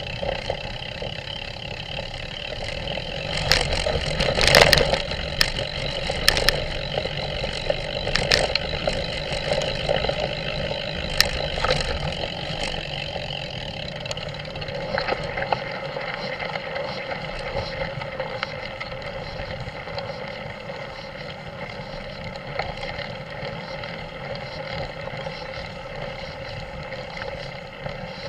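Steady motor-like drone from the vehicle carrying the camera as it travels over a rough dirt track, with a cluster of sharp knocks and rattles in the first half as it jolts over ruts.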